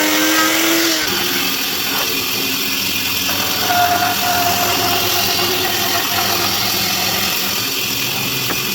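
An electric woodworking power tool running with a steady mechanical noise and hum. Its high steady tone drops out about a second in, leaving a lower running hum.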